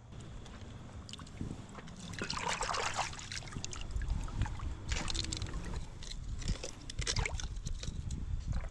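Water splashing and sloshing in irregular bursts, with a low rumble joining about four seconds in.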